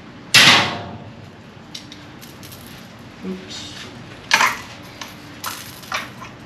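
Fishing rods and their metal terminal tackle (swivels, weights) being handled on a workbench. There is a sharp clatter about a third of a second in, then a few lighter metallic clinks around four and six seconds in.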